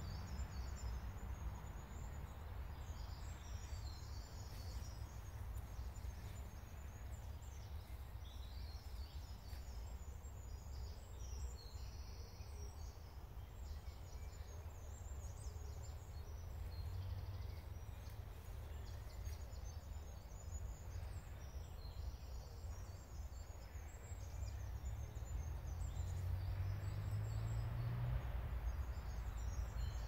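Woodland ambience: a steady low rumble with small songbird calls scattered through it, high and faint. Near the end a low hum swells and rises in pitch.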